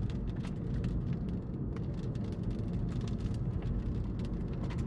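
Steady low rumble of road and engine noise inside a moving car, with scattered faint ticks.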